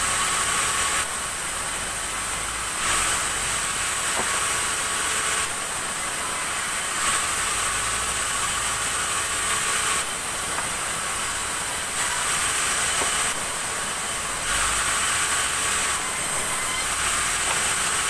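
Sawmill band saw running and cutting black acacia log into boards: a steady loud hiss with the motor underneath. The hiss grows louder and quieter every few seconds as the blade goes in and out of the wood.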